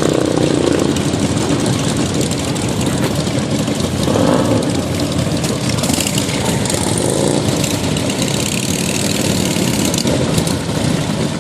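Harley-Davidson motorcycles' V-twin engines running loudly and steadily, with a brief rise a few seconds in.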